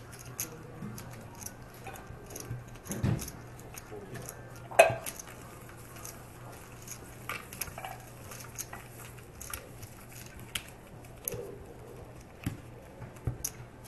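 Poker chips clicking and clacking as they are handled and stacked, with scattered sharp clicks, the loudest about five seconds in. A low steady hum runs underneath.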